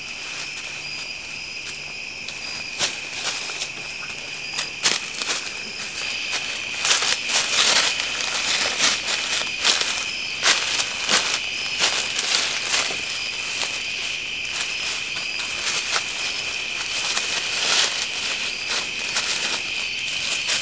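A steady, high-pitched trill of night insects, with irregular crunching footsteps through dry leaves and undergrowth on top, busiest in the middle stretch.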